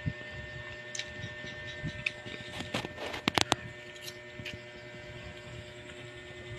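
Small eating and handling noises as a child eats rice by hand from a plastic plate: scattered soft taps, then a quick cluster of sharp clicks a little past the middle, over a steady background hum.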